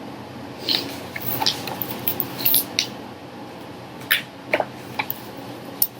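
Paper pages of a large picture book being handled and turned: a series of short, crisp rustles and crinkles.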